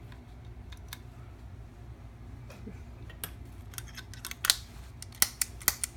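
Irregular sharp clicks and snaps from a guitar pedal being handled and pressed against its metal back cover, sparse at first and bunching up over the second half, over a steady low hum. The clicks come from the test that shows the circuit shorting out against the back panel.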